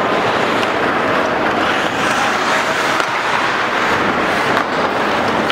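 Ice hockey game noise in an indoor rink: a steady wash of skates scraping the ice and crowd noise, with a few faint clicks of sticks and puck.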